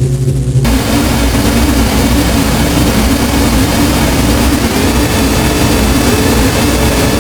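Synadrone noise synthesizer playing a low pulsing drone; about half a second in, a loud full-range hiss of noise switches on over a rumbling low end, and past the middle a faint tone glides slowly upward through it.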